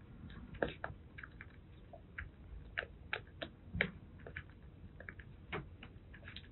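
Kitten suckling milk from a feeding bottle's nipple: irregular small wet clicks and smacks from its mouth.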